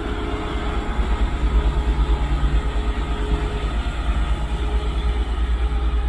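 TEP70 diesel-electric locomotive's 16-cylinder diesel engine running: a steady, loud low rumble with a fast pulsing beat and a steady hum over it.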